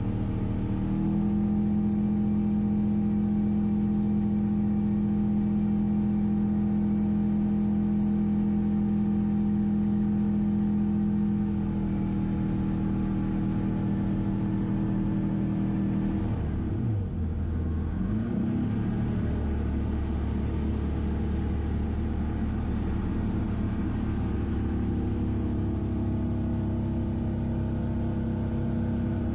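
Engine and propeller of an Ekolot Kr-030 Topaz ultralight, a four-cylinder Rotax 912, droning steadily in cruise flight, heard from inside the cockpit. About halfway through, the engine note dips briefly and rises again, then carries on at a lower pitch.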